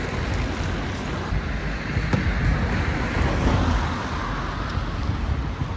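Street traffic noise: a car passing on the road, its sound swelling around the middle and fading, over a steady low rumble.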